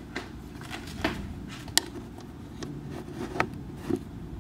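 Irregular light clicks and taps of small hard objects being handled, about seven in all, the sharpest a little under two seconds in.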